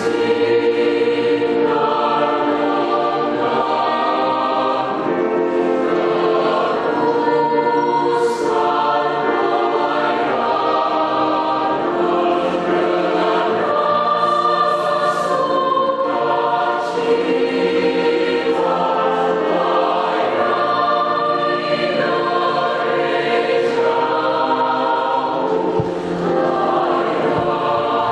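Youth church choir singing a hymn in several voice parts, with piano accompaniment; sustained chords with crisp 's' consonants at the phrase turns.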